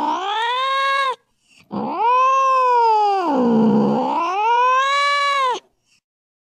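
An animal's long, wavering yowls: two drawn-out calls that slide down and back up in pitch. The first call ends about a second in. The second lasts about four seconds and cuts off sharply, leaving silence.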